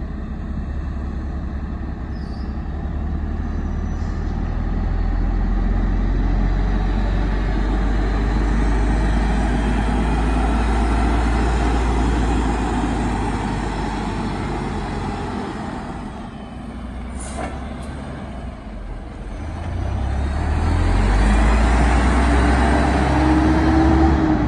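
Engine of a Sinotruk Howo T7 CNG tractor unit running as the truck drives around, its deep rumble swelling and easing with the throttle. A short hiss cuts in about two-thirds of the way through.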